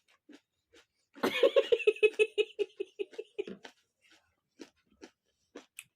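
A person laughing in a quick run of high 'ha-ha-ha' pulses for about two seconds, starting about a second in. Around it come sparse short crunches of chewing raw onion.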